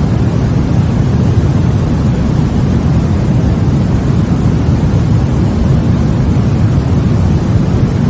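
Steady, unchanging white noise of the baby sleep-aid kind, weighted to the low end so it sounds deep and even, more rumble than hiss.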